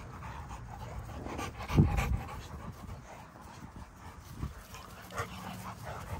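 American bully dogs panting as they play-wrestle. There is one loud low thump about two seconds in.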